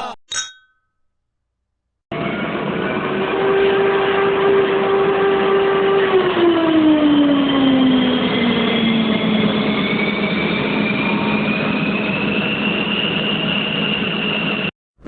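A vehicle passes by, heard as about twelve seconds of steady engine noise whose main tone drops in pitch midway as it goes past, then cuts off suddenly. A brief high beep comes just before it, followed by two seconds of silence.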